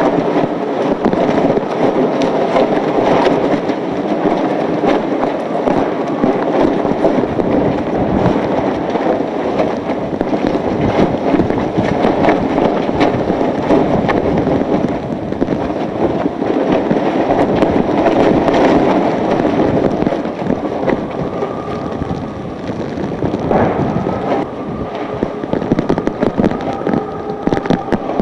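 Hurricane-force wind and driving rain buffeting the microphone, with a constant clatter of small clicks and rattles from rain and wind-blown debris on the street. The wind eases slightly after about 20 seconds, and a faint steady tone joins in near the end.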